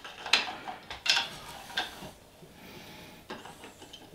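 Scattered soft clicks and rubbing of hands handling a small plastic cooling fan and its wires at a 3D printer's hotend, with a quieter stretch in the middle.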